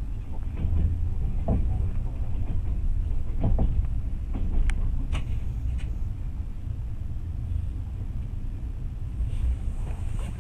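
Train running along the track, heard from on board: a steady low rumble, with a few sharp knocks and clicks in the first half.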